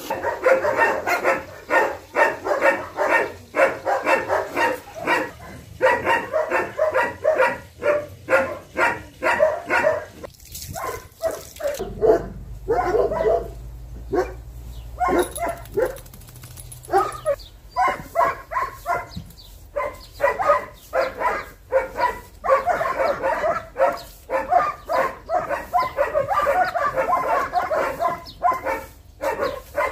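Dogs barking in long, rapid runs of barks, several a second, easing off briefly about ten seconds in and again a little later before picking up again.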